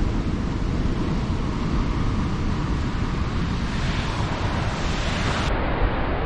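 Wind buffeting the microphone in a low, uneven rumble over a steady rushing hiss.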